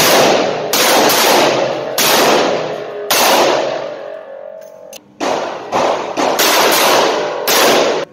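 A revolver fired shot after shot, each report ringing on in the echo of a concrete-walled indoor range. There are about four shots a second or so apart, a pause of about two seconds, then a quicker string of about five.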